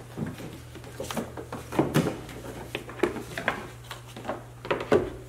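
Plastic windshield cowl shroud being worked free and pulled out by hand: irregular plastic clicks, knocks and rustles, with the loudest knocks near the end, over a steady low hum.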